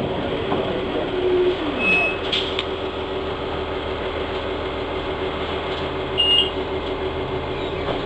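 Orion VII Next Generation transit bus with a Cummins ISL six-cylinder diesel and Allison B400R automatic transmission running, a steady engine and drivetrain drone. A falling pitch glide comes about a second and a half in, and two short high squeaks come about 2 and 6 seconds in.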